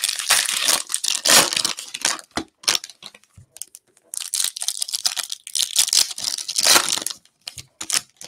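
Plastic-and-foil wrapper of a Topps Chrome baseball cello pack being torn open and crinkled by hand. The crinkling comes in two spells with a sparser lull between them, then a few short ticks near the end.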